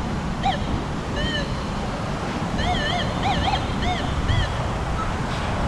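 Metal detector giving short warbling target tones that rise and fall in pitch as the coil is swept over buried metal: one, then another, then a quick run of about five. Steady surf and wind noise underneath.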